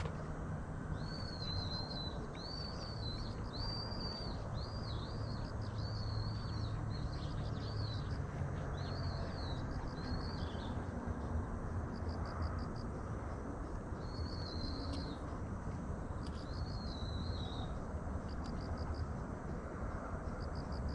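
A bird calling a run of short, arched whistled notes, about one or two a second through the first half and twice more later. Under it is a steady low outdoor rush, with faint rapid insect-like chirping near the start and end.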